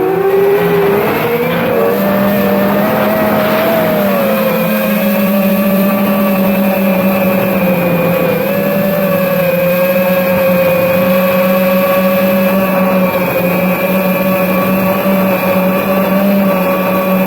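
FPV quadcopter's electric motors and propellers whining. The pitch dips and rises during the first few seconds, then holds nearly steady.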